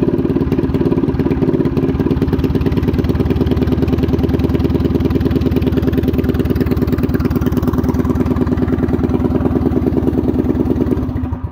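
Predator 212 single-cylinder four-stroke engine on a mini bike idling steadily with an even firing pulse, then shut off at the handlebar kill switch near the end and running down to silence.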